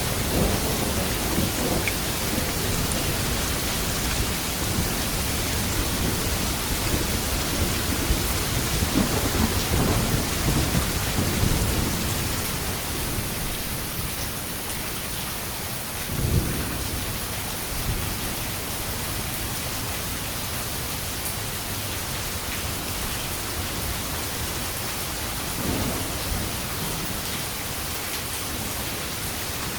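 Steady heavy rain with thunder: rolling rumbles through the first part, a sharper thunder clap about halfway through, and a weaker rumble near the end.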